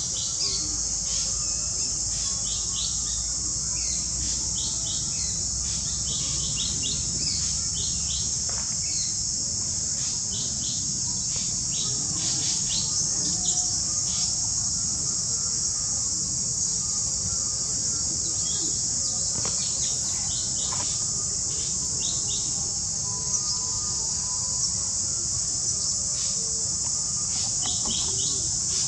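Steady high-pitched insect drone with many short bird chirps over it, coming in small clusters.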